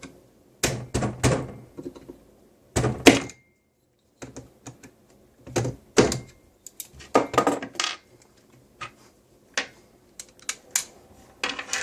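Irregular knocks and clicks of a part being punched out of an M4 airsoft gun's front end and the parts being handled, the sharpest knock about three seconds in.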